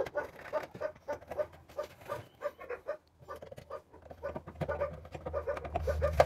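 Short pitched animal calls repeating a few times a second.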